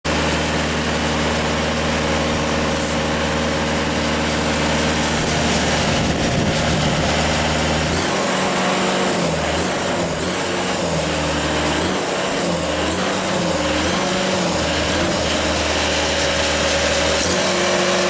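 The 86 hp engine of a Logmaster band sawmill running steadily, not yet cutting; from about eight seconds in its pitch wavers up and down.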